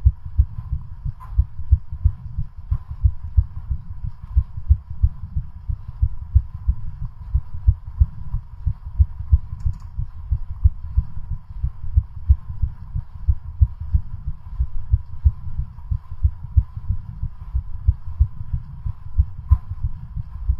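Human heart beating fast and evenly under exercise load during a cycling stress test, a steady run of deep, low thumps.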